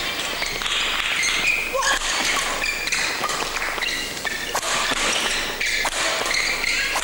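Men's doubles badminton rally: a quick series of racket strikes on the shuttlecock, sharp clicks about once a second, over the steady murmur of a crowd in a large hall.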